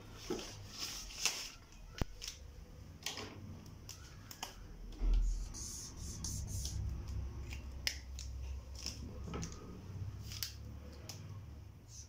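Dry-erase marker squeaking and scratching on a whiteboard in short strokes as letters are written, with scattered sharp clicks and a dull thump about five seconds in.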